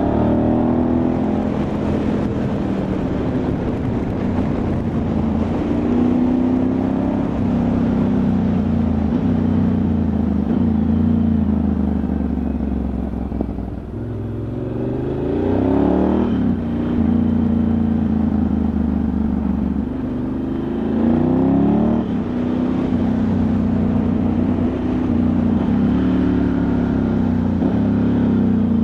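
Ducati Multistrada 1100S air-cooled L-twin engine running under way, its pitch rising and falling several times as the revs change, with wind noise throughout.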